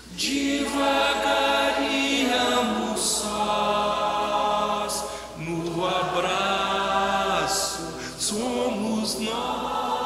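Choir singing in held chords, in long phrases that break briefly about five and eight seconds in.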